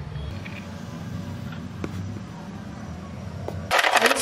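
A low steady hum with a few faint ticks, then near the end ice cubes start clattering and clinking as they drop into a mixer jar onto papaya pieces.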